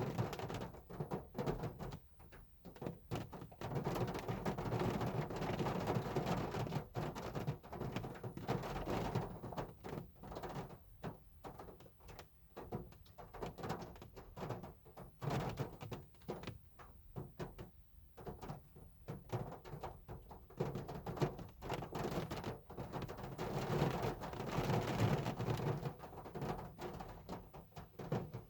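Hard rain drumming on a car, a dense, uneven patter that swells louder about a quarter of the way in and again near the end.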